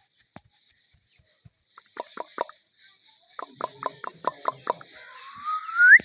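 Indian ringneck parrot making a quick run of short clicking calls, then a loud rising whistle near the end.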